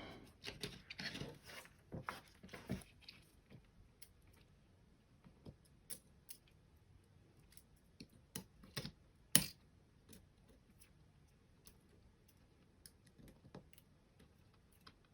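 Scattered small clicks and taps of plastic computer-mouse parts being handled and pressed together during reassembly, with one sharper click about nine seconds in.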